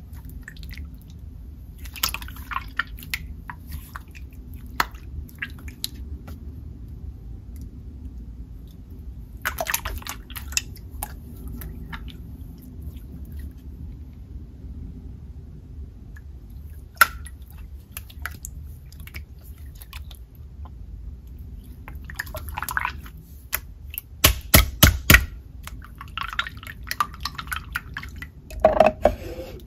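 Clear water slime being stretched, squished and pressed flat by hand, making wet, sticky clicks and crackles. Near the end comes a quick run of loud, sharp pops.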